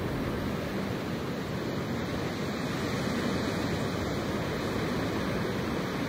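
Wind blowing through grass: a steady rushing noise with no breaks, its weight low down, with wind in trees further off.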